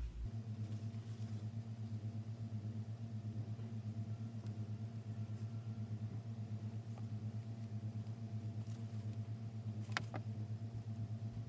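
Steady low mechanical hum with a fast, even throb, and a single sharp click about ten seconds in.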